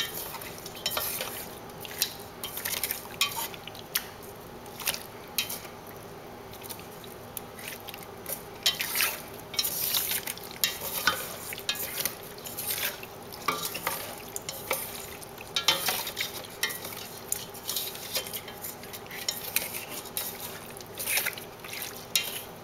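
Wooden chopsticks stirring and tossing sauce-coated chunks of pork belly, fish and fried tofu in a stainless steel pot, with irregular clicks, taps and scrapes against the pot's sides.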